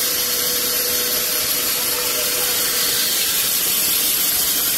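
Sawmill band saw running: a steady high hiss with a thin constant tone underneath, unchanging throughout.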